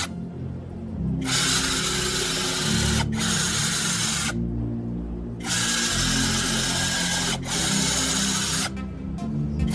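Power tool running in spells of a few seconds, stopping and starting several times, over background music.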